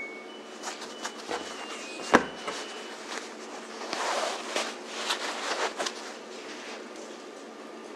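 Quilted cotton oven mitts rustling and brushing as they are pulled on and handled, with scattered light taps and one sharp knock about two seconds in.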